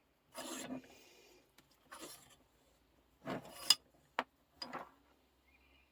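Small metal vise being handled and turned over: several short rubbing and scraping sounds, with a sharp click a little after four seconds.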